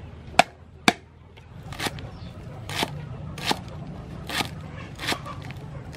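Cleaver striking a thick round wooden chopping board: two sharp knocks in the first second, then steady chops through crisp green vegetable stalks, about one every three-quarters of a second.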